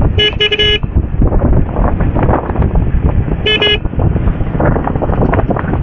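Short vehicle horn beeps: a quick cluster of three near the start and two more about three and a half seconds in. Underneath runs the steady rush of wind and road noise from a moving motorcycle.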